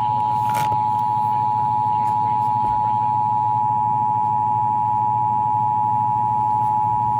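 Emergency Alert System attention signal: a loud, steady two-note alarm tone held without a break, sounding during a weekly test of the weather radio warning alarm. A low steady hum runs beneath it.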